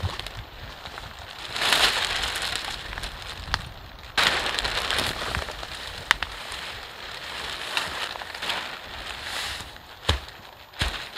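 A thin clear plastic tarp, cut from a mattress cover, crinkling and rustling in bursts as it is pulled taut and pegged down, with a few sharp knocks along the way.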